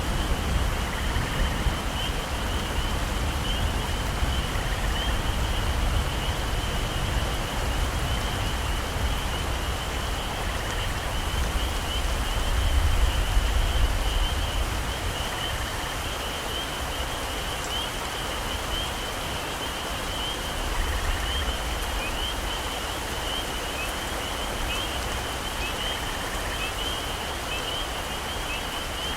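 Heavy rain falling steadily in a forest, with a low rumble that swells about halfway through. Underneath runs a continuous high chirring of animals, with a fainter call repeating every few seconds.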